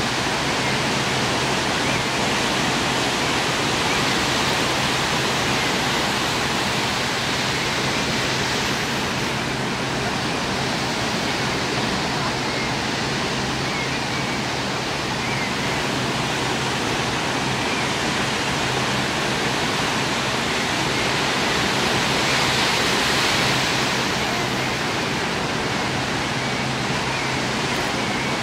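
Steady rushing outdoor noise, even and unbroken, with a few faint short high chirps.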